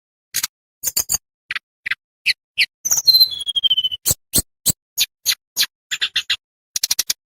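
Tledekan bambu songbird singing: a series of sharp, clicking chips and short whistled notes with brief gaps between them, a long falling whistle about three seconds in, and a quick burst of chips near the end.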